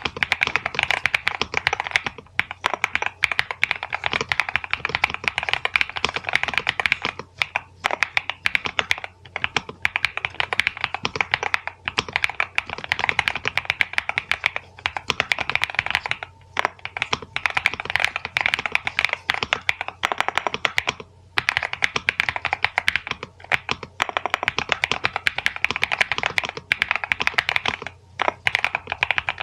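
Fast, continuous typing on a NuPhy Halo96 V2 mechanical keyboard with Mint switches: rapid keystroke clacks with short pauses now and then.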